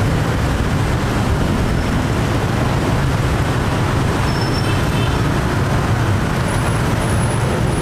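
Steady road traffic noise, an even rumble of passing engines and tyres with no single vehicle standing out.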